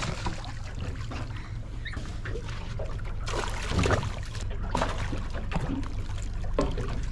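A hooked golden trevally splashing and thrashing at the surface beside a boat as it is grabbed by hand, with water sloshing against the hull, over a steady low hum.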